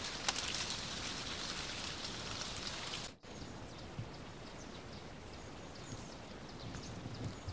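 A steady rustling hiss of leaves stirring and falling in the forest. It breaks off sharply about three seconds in and gives way to a quieter hiss with scattered light crackles of dry fallen leaves as cats walk over them.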